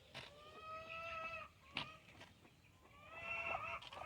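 Two faint, drawn-out calls from a chicken, each about a second long and pitched fairly steady with a slight rise. A short sharp click falls between them.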